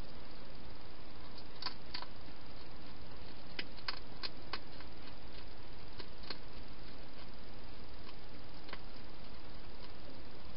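A hedgehog eating from a bowl: scattered sharp clicks and crunches, a few in quick succession, over a steady hiss.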